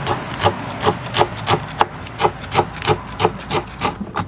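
Chef's knife slicing garlic cloves on a wooden cutting board, the blade knocking the board in an even rhythm of about three strokes a second.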